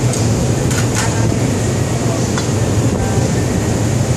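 Steady low drone of a ship's engines and machinery, with a few light clicks about a second in and again a little later.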